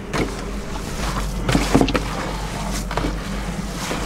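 Hands squishing and turning a coarse ground-chickpea and herb falafel mix in a plastic tub, in irregular strokes, over a steady low hum.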